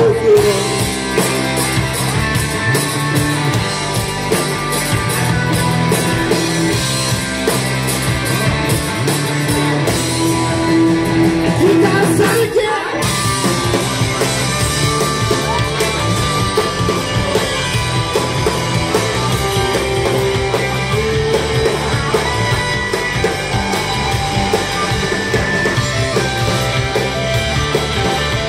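Live rock band playing loud: electric guitars, bass guitar and drum kit with a sung lead vocal. The band stops for a moment about halfway through, then comes straight back in.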